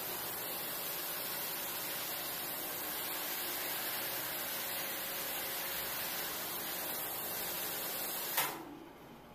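Floor-cleaning machine running, a steady even hiss that cuts off suddenly with a click near the end.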